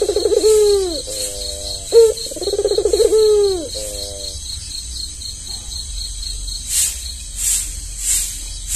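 An albino Barbary dove (puter) cooing twice in the first four seconds: each call is a short sharp note, then a throbbing rolling coo that falls away, then a few steadier low tones. After a pause, a softer rattling repeats about every half second or so, with a faint fast high chirping underneath throughout.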